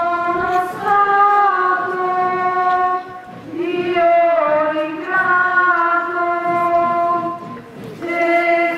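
Voices singing a slow religious hymn in unison, with long held notes in phrases of three or four seconds and short breaks between them.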